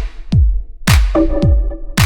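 Electronic backing music with a drum-machine beat: deep kick drums that drop in pitch, sharp snare-like hits, and short synth chords between them.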